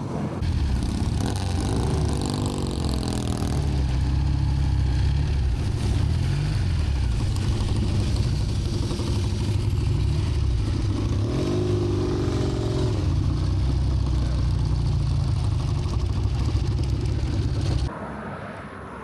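Motorcycle engine running under way with wind noise, its pitch rising and falling with the throttle about two seconds in and again about eleven seconds in; the sound cuts off suddenly near the end.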